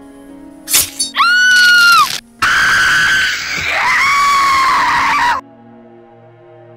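A sharp hit, then a woman's high scream lasting about a second, then after a short break a longer, rougher scream of about three seconds that cuts off suddenly. Soft music plays underneath.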